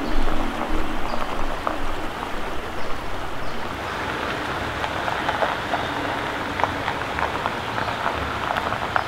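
Rain falling on foliage: a steady hiss with many scattered drip ticks.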